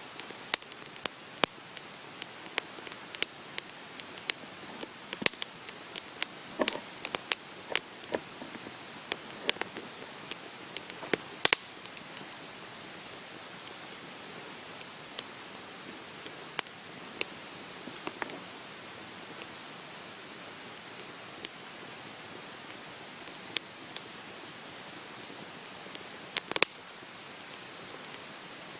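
Wood campfire crackling: irregular sharp pops and snaps over a steady hiss, thicker in the first half, with a few louder pops.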